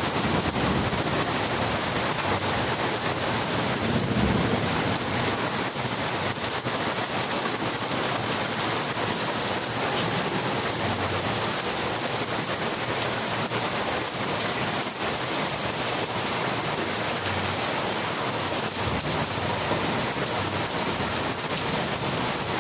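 Rain pouring steadily, with a low rumble of thunder about four seconds in.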